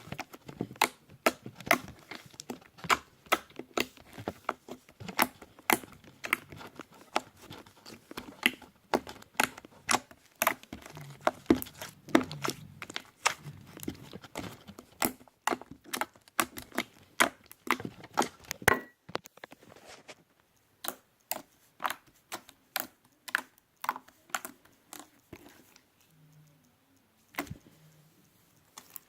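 Creamy fluffy slime being squished and pulled by hand, giving quick wet pops and clicks. The pops come thick and fast for most of the stretch, then thin out to scattered ones near the end.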